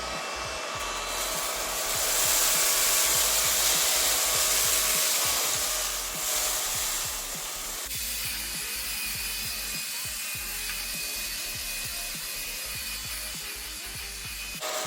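Vistefly VX cordless stick vacuum running on its medium power setting, its motorised brush head sucking up a pile of rice, coffee, salt and floor dust: a steady whine and hiss, louder for a few seconds near the start and settling down about halfway through.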